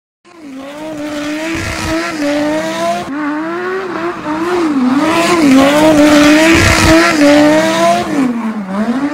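Lamborghini Gallardo's V10 engine revving up and down repeatedly as the car drifts, with tyre and loose-surface noise that swells midway.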